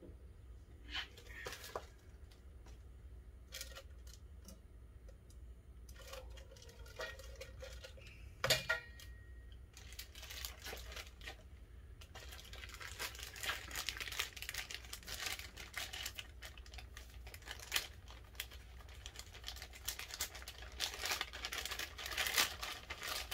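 Clear plastic parts bag being handled, crinkled and torn open by hand, with scattered clicks and a single sharper knock in the first half, then steady crackling from about halfway through.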